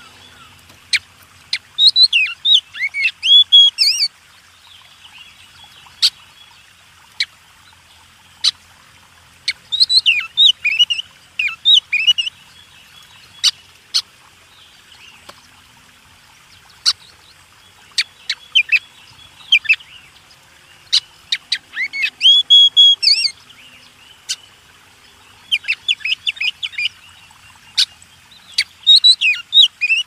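A songbird singing: phrases of quick rising and falling whistled notes about every few seconds, with single sharp clicks in the pauses between them.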